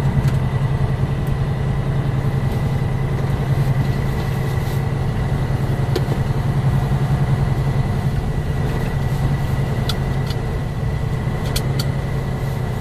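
Truck engine idling steadily, heard from inside the cab as a low even hum with a faint thin high whine over it. A few light clicks come near the end.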